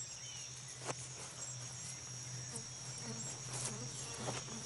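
Rainforest insects keeping up a steady high-pitched drone over a faint low hum, with one light tap about a second in.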